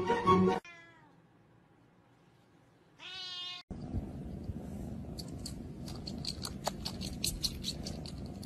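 A kitten gives one short meow that falls in pitch. Then a cat purrs steadily, with a run of small sharp clicks as it sucks on a baby's pacifier.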